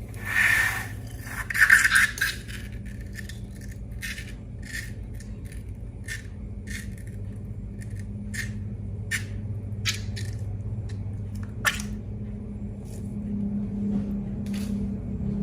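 Scattered sharp clicks and light scrapes of small objects being handled, over a steady low hum, with two louder squeaky rubs in the first two seconds.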